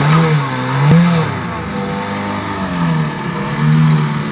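Mercury 7.5 hp two-stroke outboard motor running just after starting, its propeller churning the water in a test barrel. The revs rise and fall several times.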